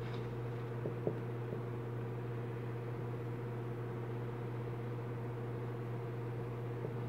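A steady low hum runs throughout, with a few faint clicks about a second in as the wires on a fan-motor stator are handled.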